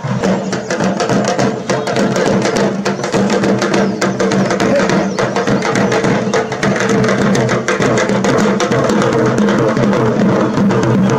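Tamil parai (thappu) frame drum beaten with two sticks, together with a smaller stick-beaten drum, playing a fast continuous processional rhythm. A steady low pitched tone runs under the drumming.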